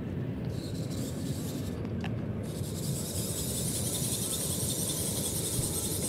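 Wind buffeting the microphone, a steady rough low rumble, with a high hiss that comes in suddenly about two and a half seconds in.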